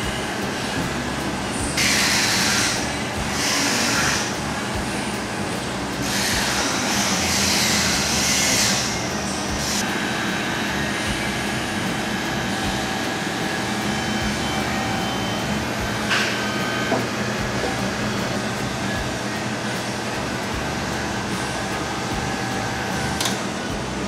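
Hydraulic tube bender's pump motor running with a steady drone while steel tube is bent. Loud hissing comes in spells, about two and four seconds in and again from about six to nine seconds, as the bender works under load; a couple of light clicks come later.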